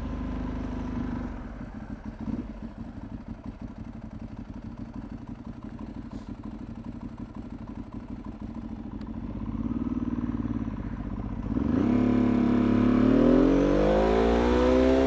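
Ducati 1098S V-twin engine through a full Termignoni exhaust, running at low revs with a lumpy, pulsing beat. About twelve seconds in it opens up and accelerates, its pitch rising steadily.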